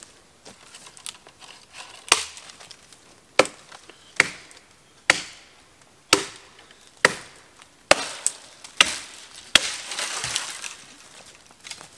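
Terävä Skrama 240 carbon-steel machete chopping into a conifer branch: nine sharp strikes about a second apart. Near the end the needles rustle as the branch gives way and comes down.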